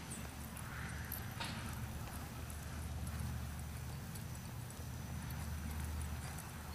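Hooves of a ridden quarter horse filly on soft arena dirt, muffled footfalls as she moves around barrels. The footfalls sit over a steady low rumble.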